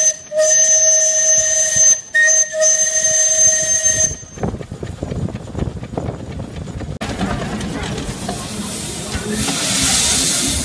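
Steam whistle on the 80 hp Foster-built compound steam engine of a Roberts-Hornsby chain-track crawler, blowing in three short blasts over the first four seconds. After that comes a steady hiss of escaping steam, louder near the end.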